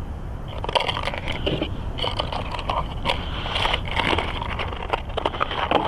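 A folding road-bike tire being worked onto its rim by hand: irregular rubbing and scraping of rubber against the wheel, with small clicks.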